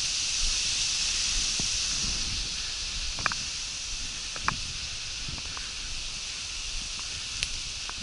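Steady high-pitched rustling hiss, slightly easing after about two seconds, with a few small sharp clicks about three, four and a half and seven and a half seconds in.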